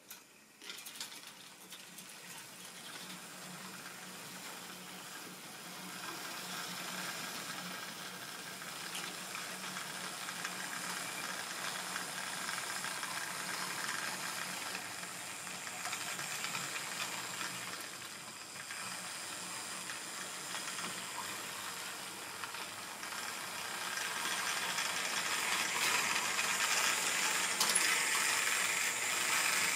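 A model railway train running on the layout track: a steady electric motor hum under a continuous rattle of wheels clicking over the rail joints. It starts just after the beginning and gets louder over the last few seconds.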